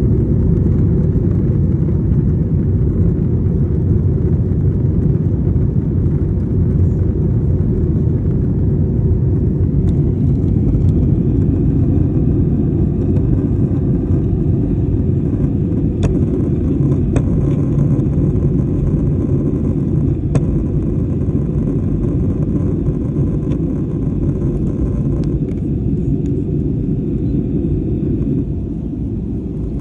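Steady low rumble of cabin noise inside an Airbus A320-family airliner in flight: engine and airflow noise during the descent to land. It eases slightly near the end.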